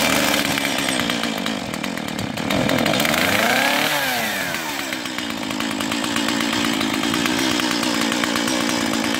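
Stihl MS 170 two-stroke chainsaw running just after being started. Its engine revs up and drops back about three to four seconds in, then runs on steadily without cutting.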